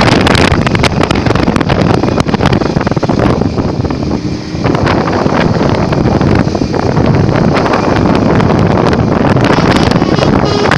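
Heavy wind buffeting the microphone over the rumble of a moving vehicle, loud and rough, with a brief lull about four seconds in.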